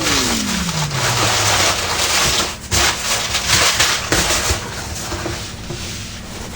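Newspaper packing rustling and crinkling as it is pulled and unwrapped, with irregular crackles and scrunches.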